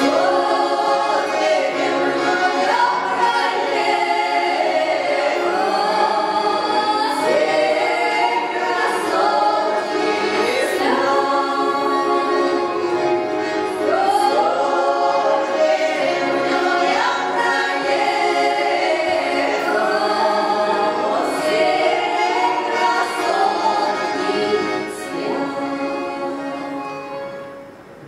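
Three women singing a Russian folk song together in harmony, their voices sliding between notes; the singing tapers off near the end.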